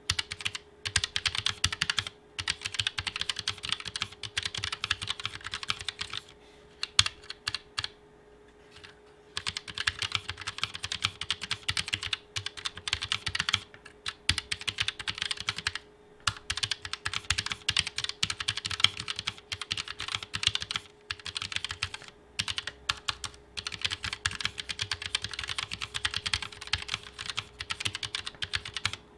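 Typing on a Keychron K1 TKL keyboard with low-profile red linear switches: runs of rapid, quiet keystroke clatter with no click, broken by a few short pauses.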